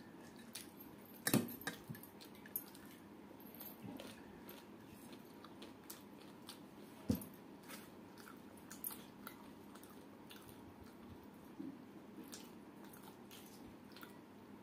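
Close-up eating by hand: quiet chewing and mouth sounds with scattered small clicks as fingers pick at a steel plate and a brass bowl. Two louder knocks stand out, about a second and a half in and about seven seconds in.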